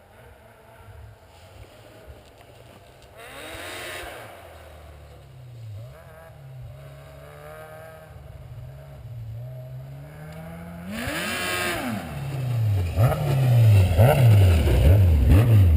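2007 Yamaha Apex Mountain (MTX) snowmobile with an aftermarket exhaust. Its four-stroke four-cylinder engine revs up and down, faint at first and growing louder. In the last few seconds it is loud, with several quick revs up and down.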